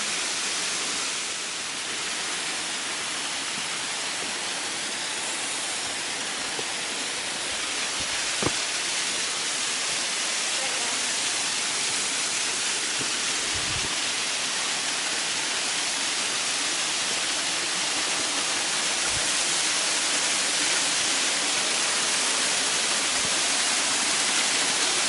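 Waterfall pouring into a pool: a steady rushing hiss that grows gradually louder. A sharp knock about eight seconds in and a couple of dull thumps later.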